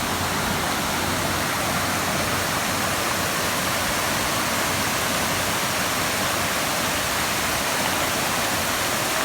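Waterfall rushing: a steady, even roar of falling water, unchanging throughout.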